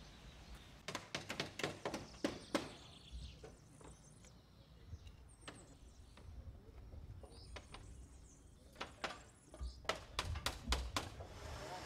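Quick runs of sharp hammer taps on wooden roof shingles, in one burst about a second in and another near the end. Faint bird chirps sound in between.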